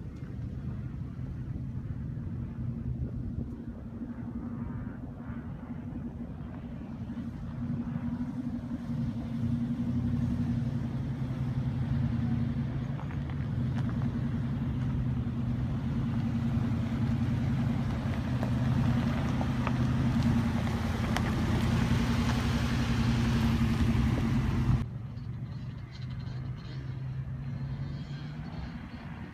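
A 2006 Nissan Armada's 5.6-litre V8 engine running under load as the SUV climbs a dirt slope off-road, growing louder as it comes closer. Near the end the sound drops suddenly to a quieter, steady engine note.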